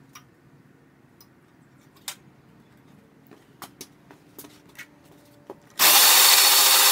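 Faint clicks and taps, then near the end a loud steady whir as the starter cranks the air-cooled VW 2054cc stroker engine with its spark plugs out, spinning it without compression to prime the oil system and build oil pressure.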